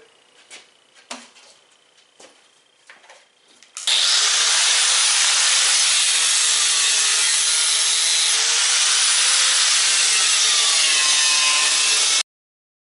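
A few faint knocks, then about four seconds in a power cutoff wheel bites into the safe's steel: a loud, steady grinding with a slowly wavering whine. It stops abruptly near the end.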